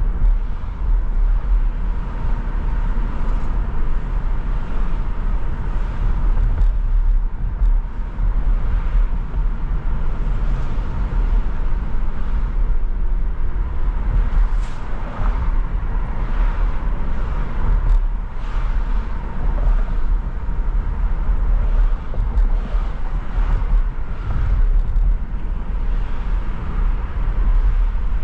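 A car driving in city traffic: a steady low rumble of engine and road noise, with a few brief sharper sounds along the way.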